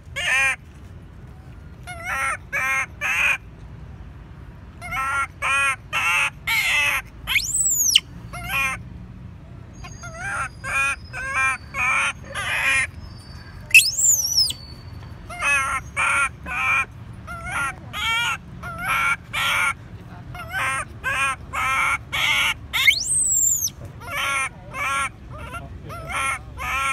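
Baby long-tailed macaque crying: short harsh calls in quick runs of three or four, over and over, broken three times by a high shriek that rises and falls.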